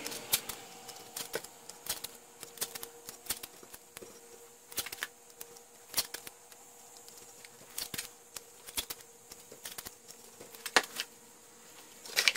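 Masking tape being torn into short strips and pressed down onto a cast iron vise base, an irregular scatter of small crackles and clicks that grows busier near the end.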